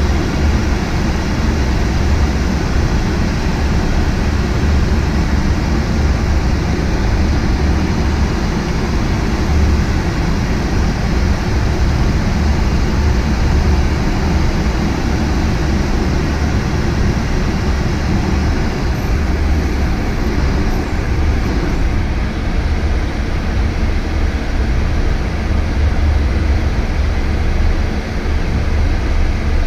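Loud, steady rush and low rumble of air streaming past a glider's cockpit canopy in a fast descent with the spoilers fully out.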